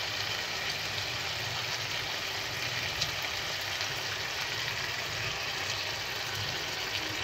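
Spiced gravy simmering with a steady hiss in a kadai as crumbled boiled potatoes go in, over a steady low hum. A single small knock about three seconds in.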